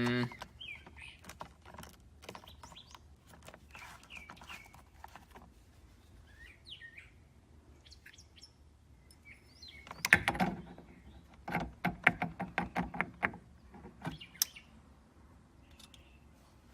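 Birds chirping faintly in the background. About ten seconds in there is a loud knock, then a quick run of about a dozen knocks over a second and a half, as the steering-wheel hub is worked onto the steering column without fitting.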